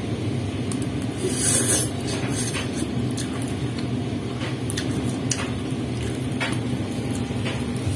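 Eating noises from a bowl of bakso noodle soup: a loud noodle slurp about a second and a half in, and scattered short clicks of a soup spoon against the bowl, over a steady low hum.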